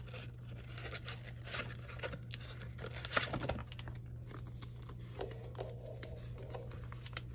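Photocards and plastic binder sleeves being handled: soft rustling, crinkling and small clicks, busiest about three seconds in, over a steady low hum.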